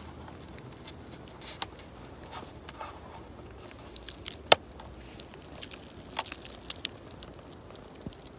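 Scattered small plastic clicks and taps of a Bushnell trail camera's case being opened and its buttons pressed, with one sharper click about halfway through.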